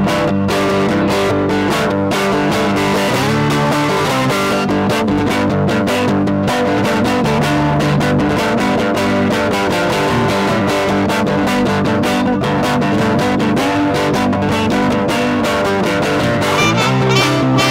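Blues music played on electric guitar, with steady picked and strummed chords.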